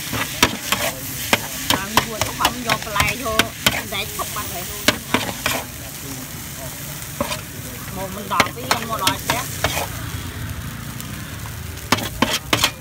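Food sizzling as it fries in a pan, while a utensil stirs it and clacks against the pan in quick runs of sharp clicks, with a short lull midway.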